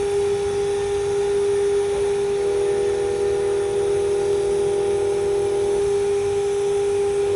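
Steady high hum of TIG welding, laying a cap pass on steel pipe that turns on a rollout positioner. A second, slightly higher tone joins from about two and a half seconds in and drops out near six seconds.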